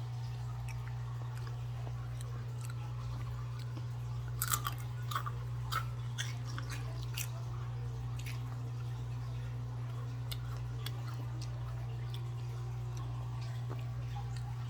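Someone chewing and crunching Takis rolled tortilla chips, with a cluster of sharp crunches about four to seven seconds in and fainter ones after. A steady low hum underlies it.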